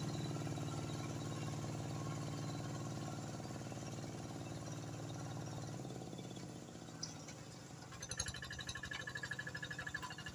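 Quick G1000 two-wheel hand tractor's single-cylinder diesel engine running steadily while it drags a leveling harrow through a flooded rice paddy, fading as it moves off. About six seconds in the sound drops, and from about eight seconds a fast, even chugging of separate beats comes through as the tractor turns at the end of the field.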